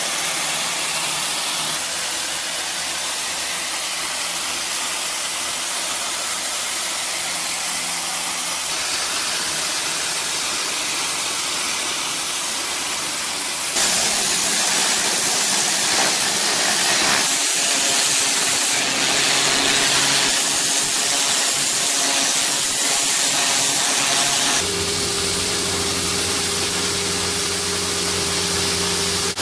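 High-pressure water jet from a pressure-washer wand hissing steadily as it blasts grime and moss off clay roof tiles, louder from about halfway. Near the end it gives way to a small machine's engine running with a steady hum.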